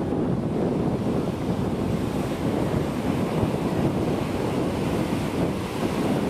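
Ocean surf breaking and washing up a beach in a steady, unbroken rush, with wind buffeting the microphone.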